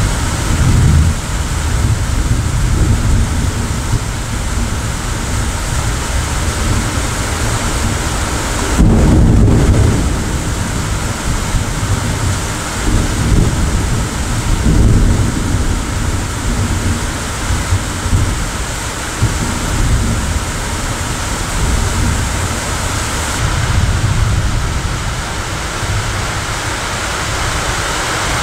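Steady rain with thunder rumbling several times through it; the loudest peal comes about nine seconds in.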